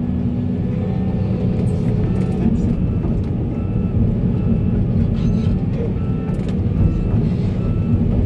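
Heavy machine's diesel engine running steadily, with a few light knocks.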